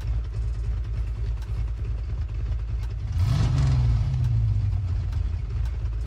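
Car engine running low and steady, revved once about three seconds in, its pitch rising and then easing back, together with a whoosh.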